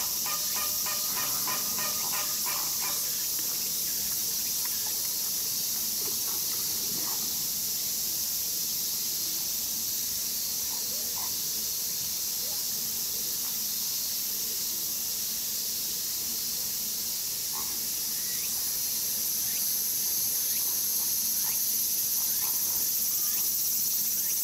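Flamingos giving short calls over a steady high hiss: a quick run of calls, about four a second, in the first few seconds, then single calls here and there.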